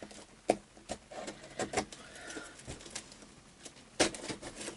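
Large cardboard guitar shipping box being handled and pulled at: scattered knocks, taps and scrapes of cardboard, the loudest a sharp knock about four seconds in.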